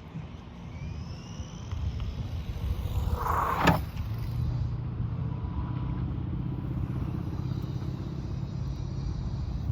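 Low, steady engine rumble of a motor vehicle, with one sharp knock a little over a third of the way in.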